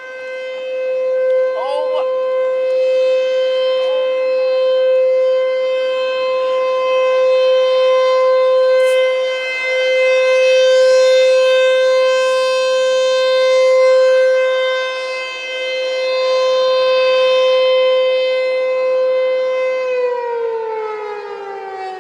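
American Signal T-128 outdoor warning siren sounding its steady full-alert tone, one loud held pitch that swells and fades in loudness as the rotating head sweeps past. About twenty seconds in it begins to wind down, the pitch falling.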